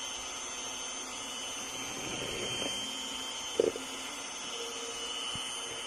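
Electric hand mixer running steadily with a high whine, its beaters whipping egg whites into meringue in a plastic bowl. A single knock sounds about three and a half seconds in.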